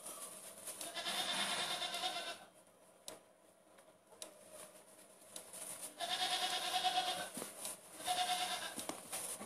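Goat kids bleating: a long, quavering bleat about a second in, another about six seconds in, and a shorter one just after eight seconds.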